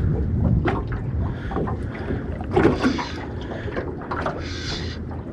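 Wind buffeting the microphone over water, with small clicks and two short hissing rustles of fishing gear being handled, about halfway through and near the end.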